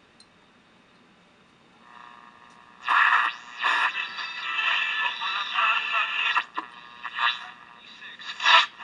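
A 1928 RCA Radiola 18 AM tube radio receiving a broadcast station through its loudspeaker. The sound is thin and narrow-band, fades up about two seconds in and is loud from about three seconds in: the newly restored set is working.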